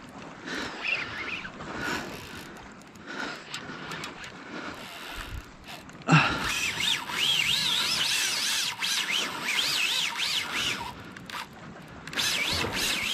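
Daiwa Saltiga spinning reel working under the load of a hooked bluefin tuna. It gives a high whine whose pitch rises and falls over and over, starting suddenly about six seconds in and breaking off briefly near the end.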